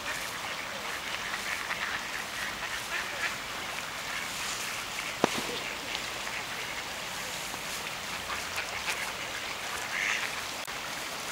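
Ducks quacking now and then over the steady rush of a river, with one sharp click about five seconds in.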